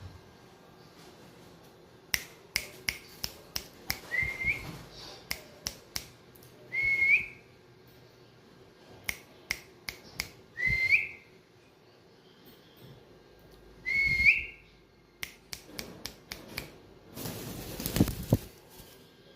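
Four short whistles that each rise and then hold a clear note, spaced a few seconds apart, among a scatter of sharp clicks and snaps. A brief burst of rustling comes near the end.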